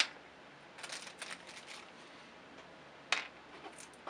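Small 3 by 4 mm hex screws tipped out of a plastic tube and landing on a work mat in a few light clicks and ticks, with a sharper click at the start and another about three seconds in.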